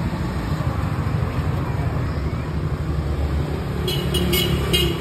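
Street traffic: a steady low rumble of passing road vehicles, with a motorbike engine going by about four seconds in and a few short high chirps near the end.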